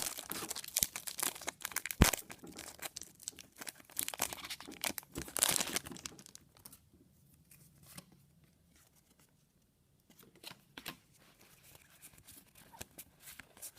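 Foil Pokémon booster pack wrapper being torn open and crinkled for about six seconds, crackling with many sharp clicks. After that it goes much quieter, with only a few faint clicks and rustles.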